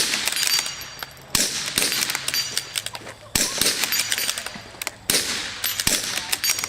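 Rifles firing in a dueling tree match: loud shots every second or two with smaller cracks between them. Steel plates ring with a high metallic ping when hit.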